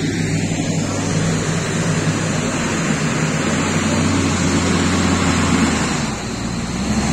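Diesel engines of earth-moving machinery, a wheel loader and a tipper truck, running with a steady low drone over a broad rushing noise. The engine note dips and drops lower about six seconds in.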